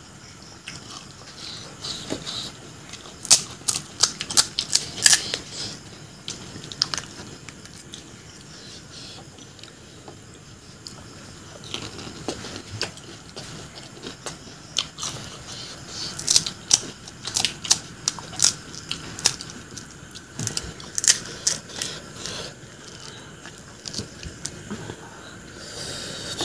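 Close-miked eating sounds: crisp puri shells crunching and being chewed in clusters of sharp crackles, a few seconds in and again past the middle. Near the end comes a brief wet rustle as a hand dips into the bowl of pani.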